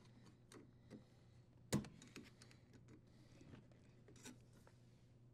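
Faint, scattered clicks and light taps from wiring being handled at a dishwasher's sheet-metal junction box, with one sharper click about a second and three-quarters in.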